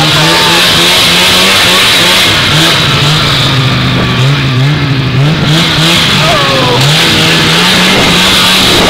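Vintage two-stroke snowmobile engine running under way, its pitch rising and falling a little with the throttle, over a steady rushing noise.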